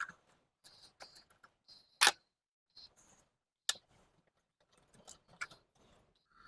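Scattered metallic clicks and taps of a wrench working the carburetor's two mounting nuts loose, with a sharper click about 2 seconds in and another a little later.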